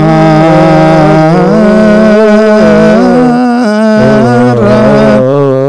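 Men chanting Ethiopian Orthodox Ge'ez liturgical chant, a prayer for the dead, holding long drawn-out syllables whose pitch wavers and steps up and down.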